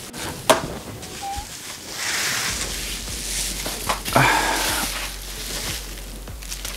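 Crinkly paper wrapping rustling and crackling as a belt is unwrapped by hand, with a sharp tap about half a second in and a short pitched sound just after four seconds in.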